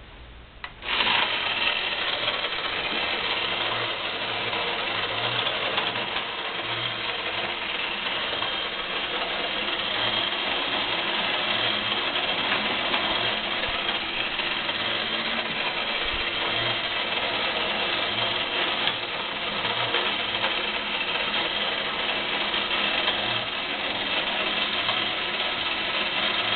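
1970 Technofix Rallye No. 328 tin toy race track switching on about a second in and running steadily: the drive mechanism whirring and the little tin race cars rattling round the tin track.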